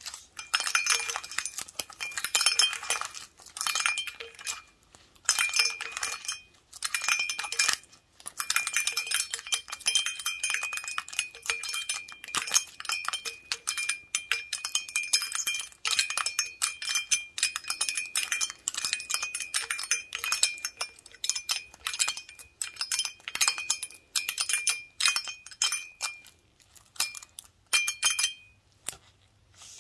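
Many wooden toothpicks held in gloved fingers rapidly tapping an empty large glass beer stein: a dense flurry of light clinks, with the glass ringing a clear high note under them. The tapping stops briefly a few times.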